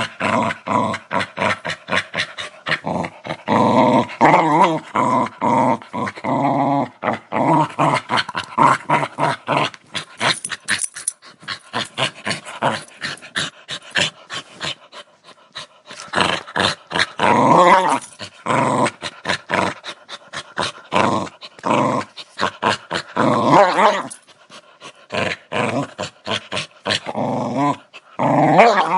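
Dog growling aggressively in long, rough pulsing bouts, with brief pauses between them.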